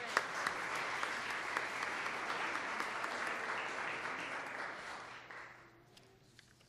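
Audience applauding: a steady patter of many hands clapping that dies away about five seconds in.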